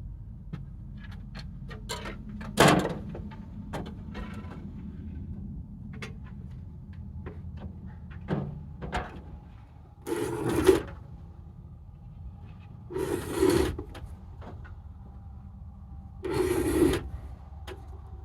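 Construction work on a steel-beam roof frame: scattered knocks and clanks, a sharp one about three seconds in, and three short noisy bursts about a second long, a few seconds apart, over a low steady hum.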